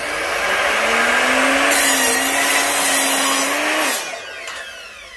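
Electric mitre saw running with a steady motor whine and cutting through a piece of wood for about two seconds. A little after halfway it is switched off, and the whine falls away as the blade spins down.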